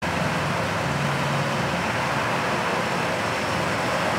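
Steady road traffic: cars driving along a street, a low engine hum over tyre and road noise, the hum strongest in the first couple of seconds.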